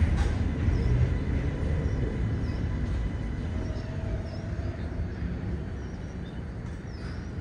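B-line NYC subway train of R68-series cars rolling slowly on the track, a low rumble of wheels on rails that fades gradually as the last car moves away.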